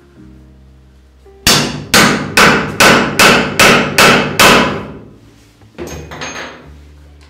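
Eight steady hammer blows on a steel rammer, about two and a half a second, each with a short ring, packing black powder fuel into a paper rocket tube. A lighter metallic knock follows near the end.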